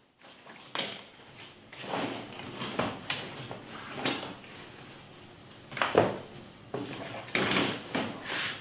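A series of irregular knocks and thuds, each short and sharp, coming at uneven gaps, with a cluster of them near the end.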